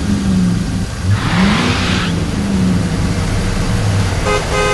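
Animated car engine sound effect revving up, rising in pitch and then running steadily, with a burst of hiss, followed near the end by two short horn beeps.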